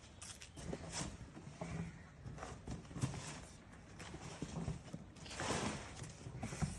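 Irregular knocks and rustling from objects being handled, with a longer rustle about five and a half seconds in.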